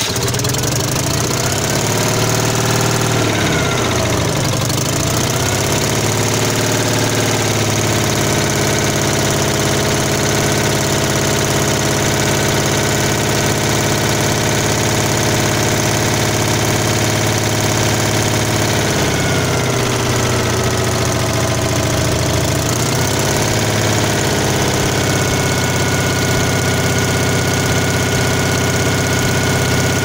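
Citroën 2CV's air-cooled flat-twin engine running, fitted with a newly replaced cooling fan. The engine speed dips and comes back up a few seconds in and again about twenty seconds in, then holds steady.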